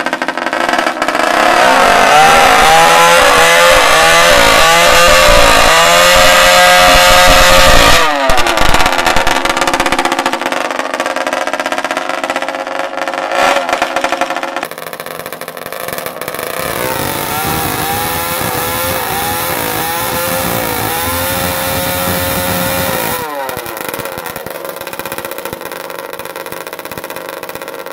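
Two-stroke engine with a vuvuzela exhaust, revved up twice and held high, giving a loud, buzzing horn-like tone that rises, holds, then drops back down. The second rev is quieter than the first.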